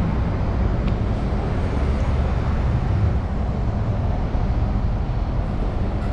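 Outdoor city ambience in an open square: a steady low rumble with a hiss of distant traffic.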